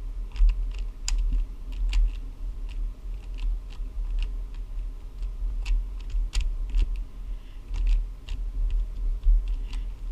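A YJ Guanlong speed cube being scrambled: irregular plastic clicking and clacking as its layers are turned by hand, over a low handling rumble.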